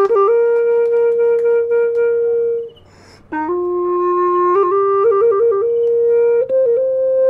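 A solo wind instrument playing a slow melody of held notes with quick trill-like ornaments. It breaks off briefly about three seconds in, with a breathy pause, then carries on.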